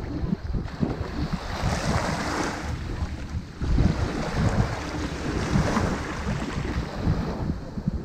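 Waves breaking and washing up a pebble beach, the hiss of surf swelling twice, about two and five seconds in, over a steady low rumble of wind buffeting the microphone.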